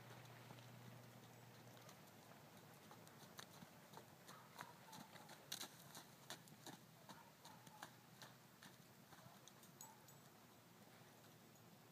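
A young filly's hooves beating on arena sand as she trots and canters loose, faint, irregular soft knocks that thin out near the end.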